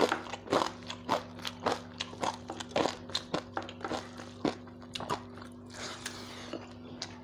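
A person chewing crunchy food close to the microphone: sharp crunches about twice a second, thinning out about five seconds in.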